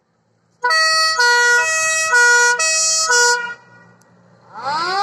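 Siren on a Land Rover Series III fire engine. It sounds a loud two-tone call, alternating between a low and a high note about twice a second for about three seconds. After a short gap, a wail starts near the end, rising steeply in pitch.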